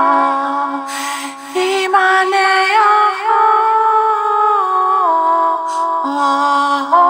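A female voice singing slow, long-held notes without clear words, stepping and gliding from one pitch to the next, with short breaths between phrases.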